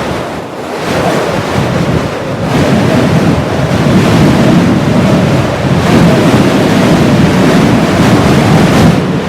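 Heavy blizzard wind blowing in strong gusts: a loud, continuous rush that builds over the first few seconds and then surges and eases.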